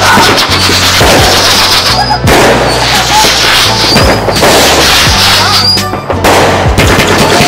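Fireworks going off: repeated loud bangs and crackles from shells bursting, over music with steady low bass notes.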